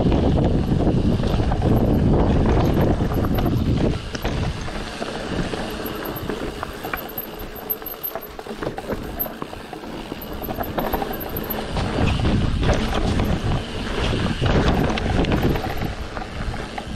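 Wind buffeting the microphone during a mountain bike ride, dropping off about four seconds in, followed by the bike's tyres and parts rattling over rough ground with scattered sharp clicks.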